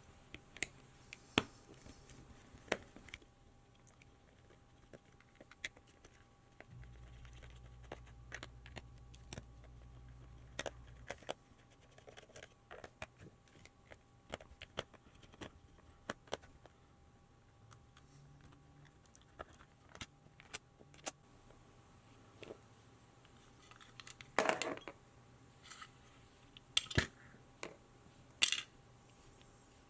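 Small clicks, taps and scrapes of hands working a screwdriver bit on a plastic Game Boy battery pack to open it. A few louder clacks come near the end.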